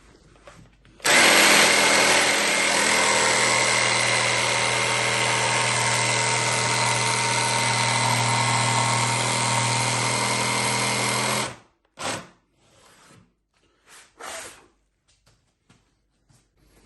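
Cordless Makita jigsaw cutting through 18 mm MDF skirting board, running steadily for about ten seconds, then stopping abruptly. A few faint knocks follow.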